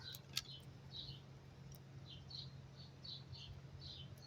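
Faint, short, high chirps repeating a few times a second, like a small bird calling, over a steady low hum, with a single click about half a second in.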